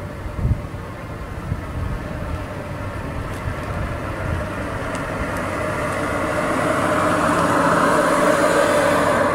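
Tesla Model 3 pedestrian warning sound: a synthetic hum from the car's external speaker as it moves at low speed, swelling steadily louder toward the end. A low fluttering rumble runs beneath it in the first half.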